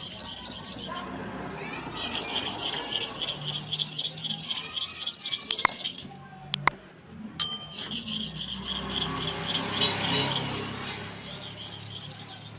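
Worn hair-clipper blade being rubbed on an abrasive sharpening surface, a rasping scrape in two spells with a short break and a couple of sharp clicks around the middle. The worn inner face of the small blade is being ground flat and bright.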